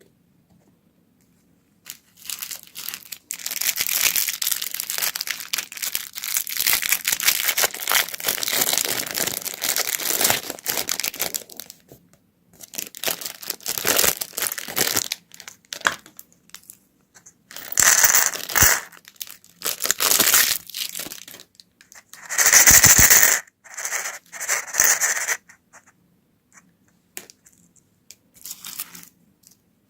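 Candy wrappers being crinkled and torn open by hand. About two seconds in, dense crackling starts and runs for about ten seconds, followed by shorter bursts with pauses, the loudest of them about two thirds of the way through.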